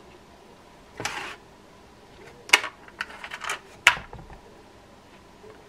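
A short rustle, then a handful of sharp clicks and taps of small metal parts: side plate screws being picked out of a parts container.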